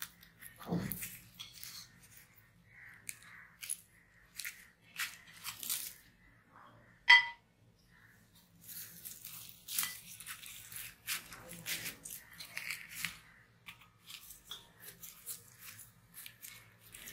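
Fingers tearing flaky, fried porota flatbread: irregular crisp crackling and rustling as the layers pull apart. A single sharp clink about seven seconds in.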